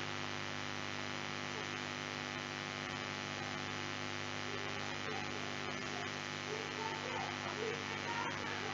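Steady electrical mains hum, with faint murmured voices coming in about halfway through.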